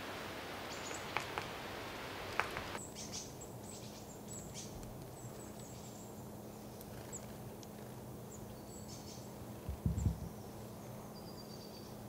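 White-backed woodpecker pecking at a suet feeder: a few sharp taps in the first three seconds, then faint high ticks and a few short, thin, high calls. A low thump about ten seconds in is the loudest sound.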